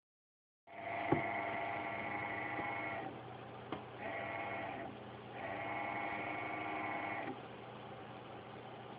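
Radeon HD 5870 graphics card making a buzzing, whining noise over a steady hum. The noise comes in three stretches, about two seconds, under a second, and two seconds long, and the uploader calls it horrible.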